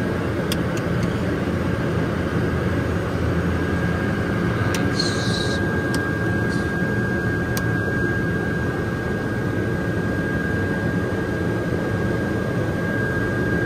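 Pilatus PC-12 NGX's single PT6A turboprop engine and propeller running steadily at taxi, heard inside the cockpit as a dense, even drone with a thin, steady high whine over it. A few faint clicks come and go.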